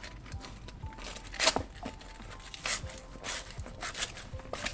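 80-grit sandpaper rubbed by hand over a plastic dog disc, giving short, irregular scratchy strokes, a few of them louder. The rubbing sands off raised edges and rough spots left by the dog's bites.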